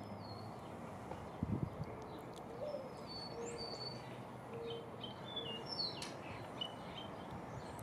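Mourning dove cooing: a short rising note followed by three low, steady coos. Small birds chirp thinly and high above it, and a few low thumps come about a second and a half in.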